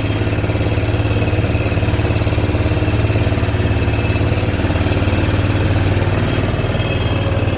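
Engine of a slow-moving vehicle running steadily at low revs.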